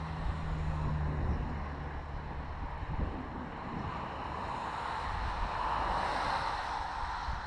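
Wind rushing over a handlebar-mounted camera's microphone on a moving bicycle, with road noise. A car passes in the next lane, swelling and fading about five to seven seconds in.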